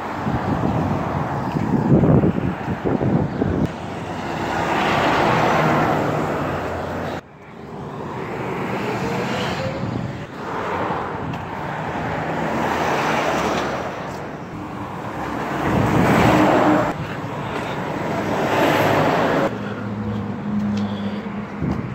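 Road traffic passing close by: cars and trucks go by one after another, their engine and tyre noise swelling and fading every few seconds, with a sudden break about seven seconds in.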